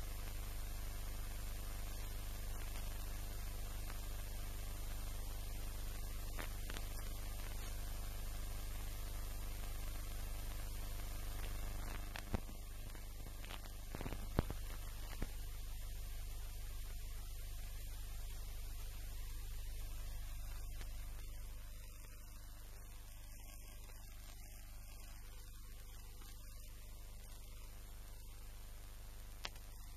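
A steady low hum with a stack of even tones above it and a few sharp clicks around the middle; the hum steps down quieter about two-thirds of the way through.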